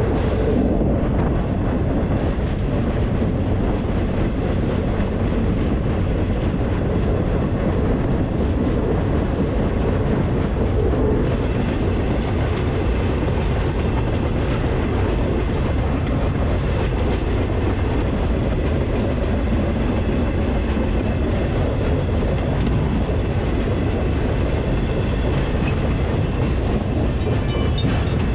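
Freight train rolling along, heard from a rider on board: a steady rumble of wheels and cars on the track.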